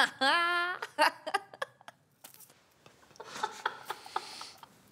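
A woman's short high-pitched laugh near the start, then scattered clicks, scratchy rustling and breathy laughter.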